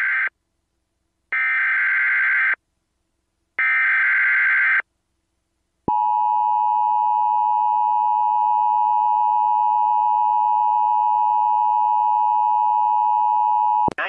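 Emergency Alert System header: the end of one burst of SAME digital data tones, then two more bursts of about a second each with short silent gaps. Then the steady two-tone EAS attention signal sounds for about eight seconds and cuts off sharply. It signals an incoming tornado warning.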